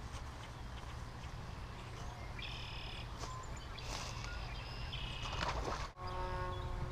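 Birds calling outdoors over a steady low rumble of wind on the microphone: two short chirping calls a couple of seconds apart. Near the end, after an abrupt break, a steady pitched sound comes in.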